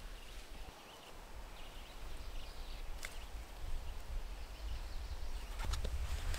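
Forest ambience: a low, uneven rumble of wind on the microphone with faint, scattered bird chirps, and a single sharp click about three seconds in.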